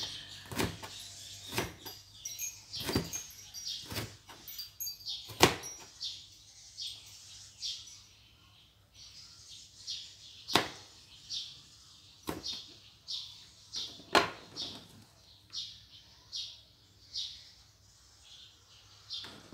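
Kitchen knife slicing a tomato on a plastic cutting board: sharp knocks of the blade striking the board, about one a second for the first few seconds, then more sparsely.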